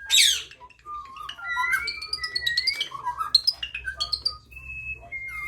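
Pet talking birds calling together: a loud screech right at the start, then a busy stream of whistles, chirps and squawks.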